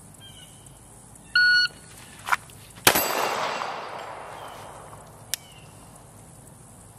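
A shot timer's start beep, then a single 9mm shot from a Glock 19 pistol about a second and a half later, drawn from a concealed holster. The report is the loudest sound and its echo fades over about two seconds; a light click comes just before the shot.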